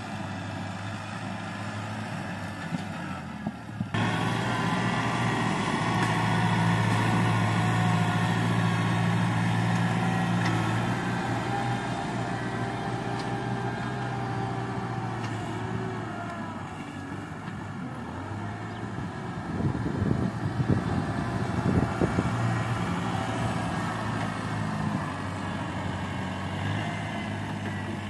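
Kubota M6040 tractor's diesel engine running steadily under load while it works the soil. It gets suddenly louder about four seconds in, and a run of clanking knocks comes about two-thirds of the way through.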